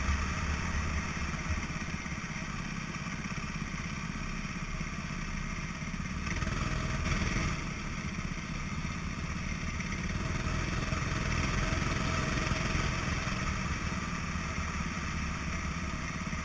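Go-kart engine running steadily at an even pace, with no clear revving up or down, picked up by a helmet-mounted camera along with wind and track rumble.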